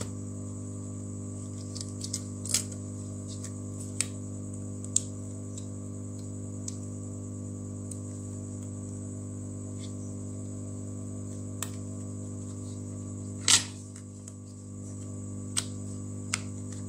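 Steady low electrical hum, with a few sharp clicks and taps of small parts being handled on a repair bench; the loudest click comes about 13 seconds in.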